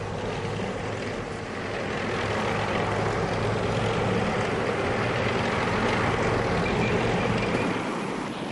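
Armoured personnel carrier driving, a steady engine and track din with a constant low hum; it grows louder about two seconds in and eases off near the end.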